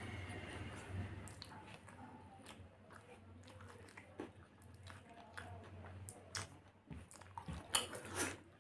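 A person chewing a mouthful of chicken stir-fry and rice with wet mouth clicks and crunches, along with fingers gathering rice on the tray. A cluster of louder clicks comes near the end.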